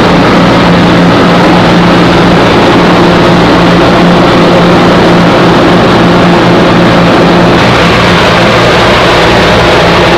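Steady drone of the Consolidated PBY-5A Catalina's two Pratt & Whitney R-1830 Twin Wasp radial engines, heard loud inside the cabin in flight. The low hum changes a little about three-quarters of the way through.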